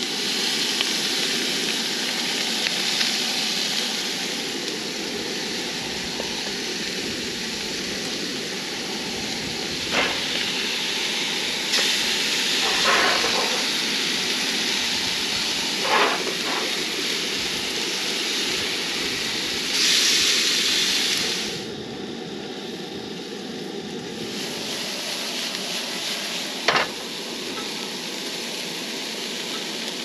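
Salmon steaks sizzling in oil in skillets on a two-burner propane camp stove, a steady frying hiss. A few sharp clinks and short scrapes of a metal spatula against the pan come through as the fish is turned.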